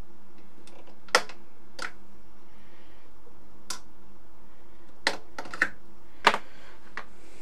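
Snap-on plastic cover of a small relay being worked off its base by hand: about seven sharp, irregular plastic clicks and snaps, the loudest about a second in and again about six seconds in.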